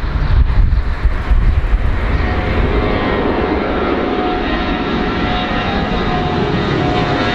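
Airplane engines running loud: an uneven low rumble for about the first two seconds, then a steady rush with a whine of several steady tones on top.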